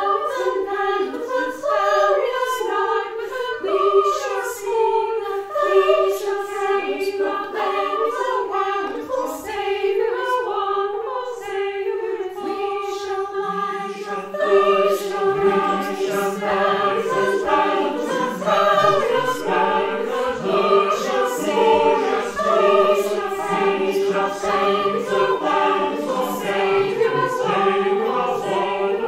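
Mixed virtual choir singing a slow carol in harmony over one steady held note. About halfway through, a lower held note comes in as the men's voices join.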